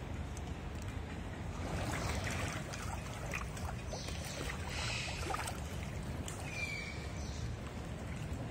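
Water splashing and sloshing as Australian pelicans swim, dip their bills and flap in a pond, with louder splashes about two seconds in and again around four to five seconds, over a steady low rumble.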